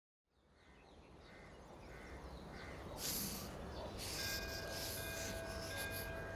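Outdoor ambience fades in with crows cawing a few times, then white chalk scraping against a rough plastered wall in several scratchy strokes, the first about three seconds in.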